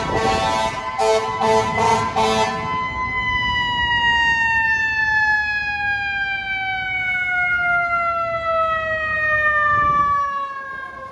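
FDNY fire engine arriving: several short blasts of its air horns over its mechanical siren for about the first two and a half seconds, then the siren winding down in one long, slowly falling wail as it coasts to a stop.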